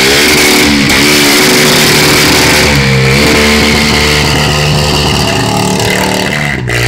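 Quad bike engine revving hard and held at high revs, its pitch dipping briefly now and then, as the quad is held up on its rear wheels in a wheelie; it cuts off near the end.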